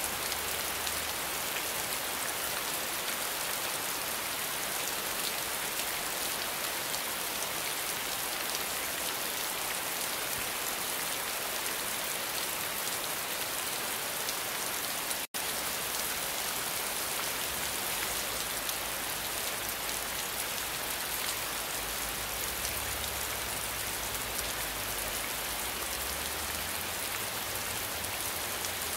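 Steady rainfall, an even hiss of many drops splashing down; the sound cuts out for a split second about halfway through.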